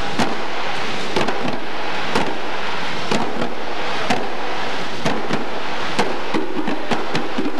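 Djembe hand drums played by several drummers: sharp hand slaps at an uneven rhythm, a few a second, over a steady background noise.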